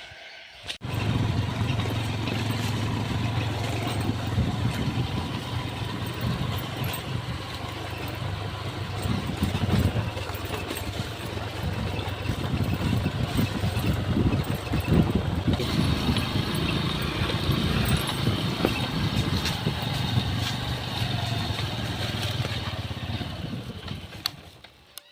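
Motorcycle engine running steadily while being ridden. It starts abruptly about a second in and drops away near the end.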